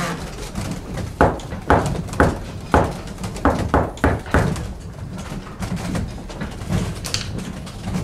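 A run of sharp wooden knocks and thuds, about two a second, dying down about halfway through.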